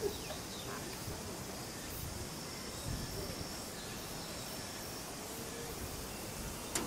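Outdoor ambience on a windy day: a steady hiss of wind with faint distant voices and a thin high insect-like whine that comes and goes. A sharp click sounds just before the end.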